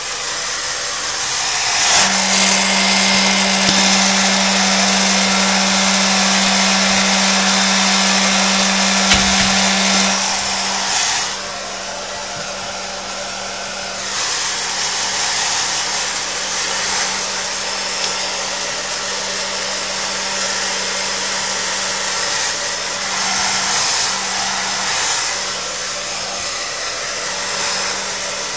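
Hair dryer running steadily, a continuous rush of air with a motor hum. It is louder for several seconds near the start, dips about eleven seconds in, then carries on.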